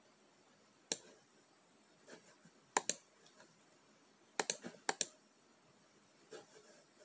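Sparse, sharp clicks of computer keys or buttons: one about a second in, a quick pair near three seconds, then a burst of about five close together around four and a half to five seconds, with a few fainter clicks between.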